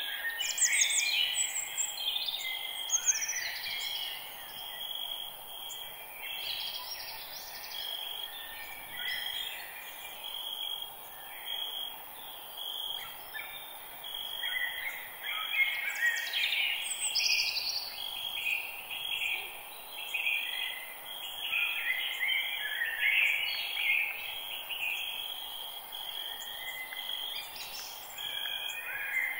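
Several wild birds singing and calling at once in a forest dawn-chorus style, with overlapping chirps and trills and one bird repeating a short note over and over, over a steady high hiss.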